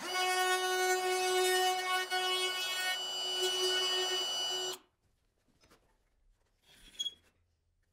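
Compact trim router running at speed in a hinge mortising jig on a door edge: a steady high whine that cuts off abruptly a little over halfway through. One faint knock follows near the end.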